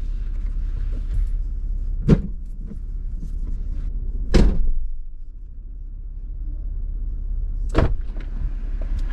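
Parked Jeep's engine idling, a steady low rumble heard inside the cabin. Three sharp clunks break through it, about two, four and eight seconds in; the loudest is the middle one, about four seconds in.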